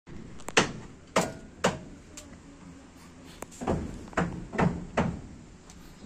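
A string of heavy, irregular thuds and knocks, about seven loud ones, from a horse moving about in a wooden stall.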